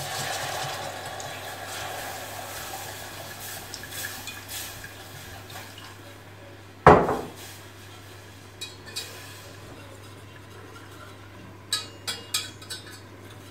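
Water poured into a steel pot of toasted corn flour and fat while a wire whisk stirs it, a running liquid sound that fades over about six seconds. A sharp knock about seven seconds in, then light metal clinks of the whisk against the pot near the end.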